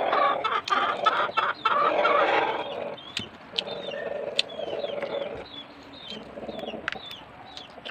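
Chickens clucking, loudest for the first two or three seconds, then quieter clucks with short, sharp high chirps scattered through the rest.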